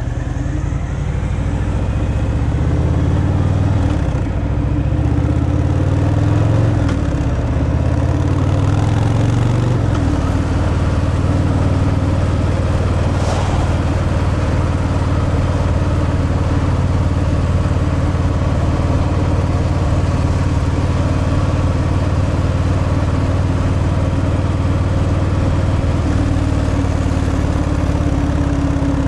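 Harley-Davidson Fat Boy's Milwaukee-Eight 114 V-twin running through the stock exhaust on the move. Its pitch rises and drops several times in the first ten seconds, then holds steady at an even cruise.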